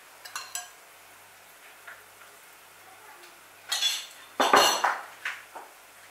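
Kitchen utensils and dishes clinking and knocking: two light clinks near the start, then a louder clatter of knocks about four seconds in.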